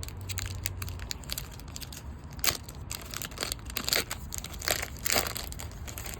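Foil card-pack wrapper crinkling and tearing as it is opened: a run of sharp crackles, loudest about two and a half, four and five seconds in.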